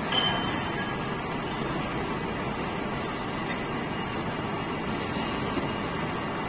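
Spiral conveyor running steadily as it carries cartons around its helical track: a continuous, even machine rumble and hiss. A few brief high-pitched tones sound near the start.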